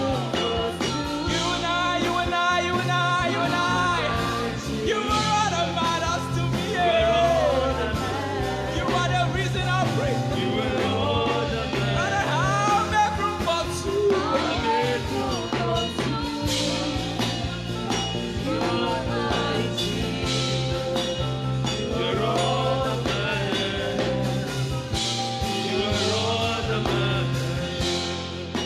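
Slow worship music: a saxophone plays a bending, ornamented lead melody over a steady backing with a sustained bass line.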